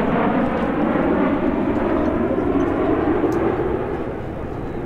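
A formation of nine CT-114 Tutor jets, each with a single turbojet, flying past: a steady, loud jet rumble that eases off near the end as the formation moves on.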